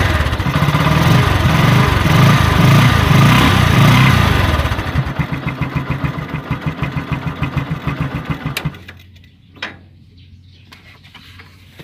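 Kawasaki Bajaj 125 motorcycle's single-cylinder engine running just after being started on a test run after refitting the cleaned air filter. It runs loud and fast for about five seconds, then settles into a slower idle with distinct, evenly spaced firing pulses, and shuts off about nine seconds in. A single short click follows.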